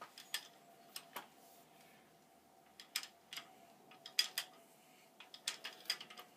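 Scattered light metal clicks and clinks at irregular intervals as a Ridgid 00-R hand pipe threader's die head is handled and fitted onto the oiled end of a black iron pipe, before the thread cutting begins.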